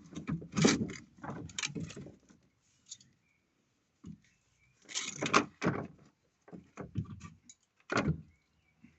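Clunks, knocks and scraping of a car radiator being worked loose against its plastic fan shroud, coming in bursts with short pauses between.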